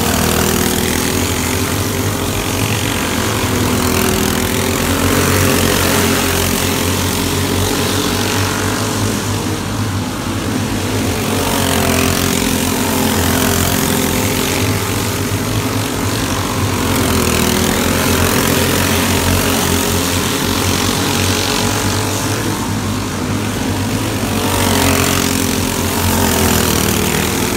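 Small winged dirt-track sprint car running practice laps, its engine note rising and falling as it circles the track.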